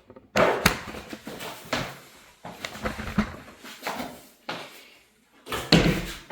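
A run of irregular knocks and clicks from door hardware being handled while a hinge is worked on.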